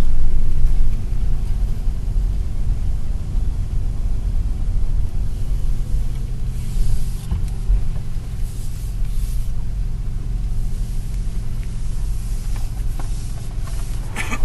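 Low, steady road and tyre rumble inside the cabin of an electric Volkswagen Golf Blue-e-motion while it is driven, with no engine note.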